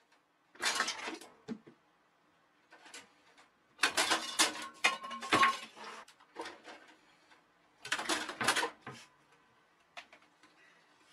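Several short, irregular bursts of clattering and scuffling, as a cat jumps at a computer tower and scrabbles against its case.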